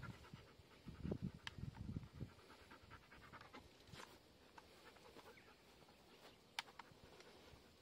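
Labrador dog panting with its mouth open, loudest about a second or two in and then fainter, with a few faint clicks.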